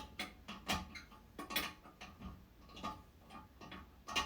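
Irregular metallic clicks and clinks, about two a second, some with a short ring, from tools working a stuck nut off a toilet tank bolt.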